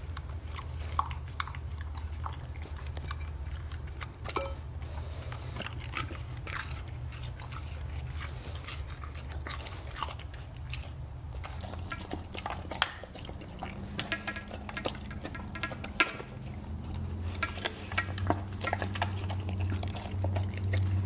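Siberian huskies eating raw ground meat from metal dog bowls: wet chewing and mouthing of the food, with frequent short clicks against the bowl, over a steady low hum.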